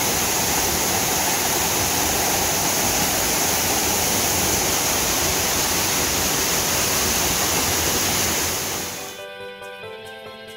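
Waterfall pouring into a plunge pool: a loud, steady rush of water. About nine seconds in it falls away quickly and gentle instrumental background music takes over.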